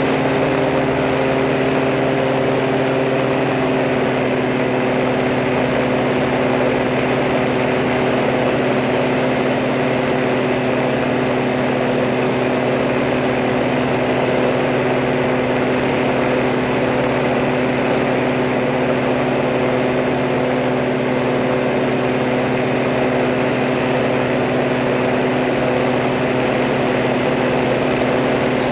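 Camera drone's motors and propellers running steadily in flight: a constant hum of several steady tones over an even hiss.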